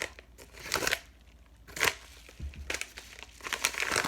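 Packaging being handled and pulled open by hand, crinkling in short bursts with pauses between.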